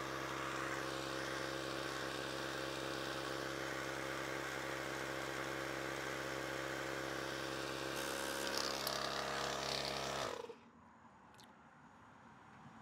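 Ryobi battery-powered portable tire inflator running with a steady motor hum, pumping air in at very low pressure for a leak test. A hissier edge comes in about eight seconds in. The pump cuts off abruptly a little after ten seconds, followed by a small click.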